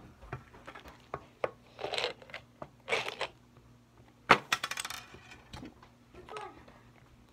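Plastic BeanBoozled jelly bean container being handled, with jelly beans rattling inside in short bursts and one sharp click about four seconds in, followed by a brief rattle and a few lighter clicks.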